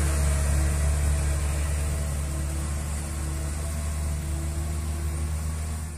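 Diesel engines of a light truck and a minibus pulling up a steep climb. The low engine drone holds a steady pitch and slowly fades as the vehicles pass.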